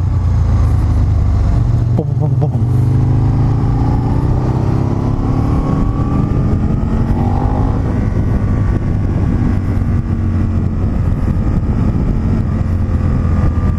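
Motorcycle engine running under way, heard from the rider's seat with wind noise. Its pitch rises slowly as the bike accelerates, then holds steady.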